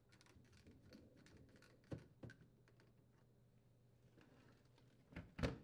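Faint clicks and taps of a screwdriver and screws being driven through a dishwasher's mounting brackets, with two small knocks about two seconds in and a louder knock near the end.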